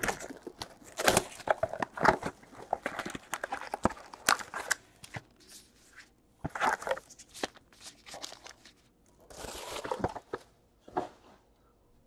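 Foil wrappers of baseball card packs being torn open and crinkled by hand, in irregular rustling, crackling bursts with short pauses between them.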